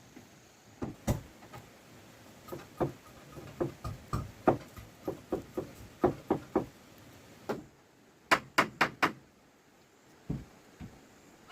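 A long run of irregular knocks and taps, ending in four quick, sharp strikes in a row about eight seconds in, then one more knock.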